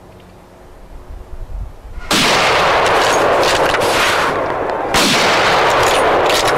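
Two hunting rifle shots about three seconds apart, each a sudden loud crack followed by a loud noise that holds for a couple of seconds.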